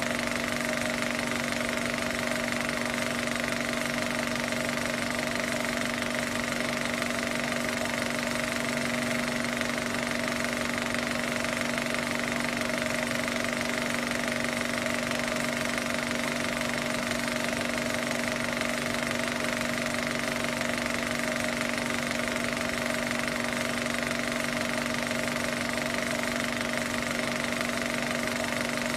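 Film projector running: a steady mechanical clatter with a constant hum and hiss.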